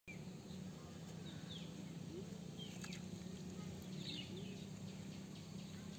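Outdoor ambience: a few short, falling bird chirps scattered over a steady low hum.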